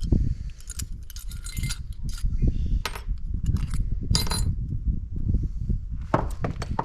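Metal engine parts and hand tools clinking and knocking as they are handled, a few scattered sharp clinks over a steady low rumble.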